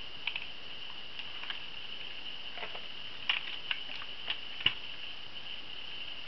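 Scattered light clicks and taps from a vintage Kenner Star Wars Scout Walker plastic toy and its cardboard box being handled, about eight in all, the loudest a little past halfway, over a steady high hiss.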